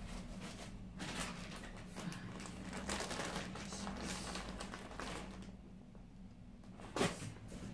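Plastic bags holding skeins of yarn rustling and crinkling as they are picked up and moved, with a sharp knock about seven seconds in.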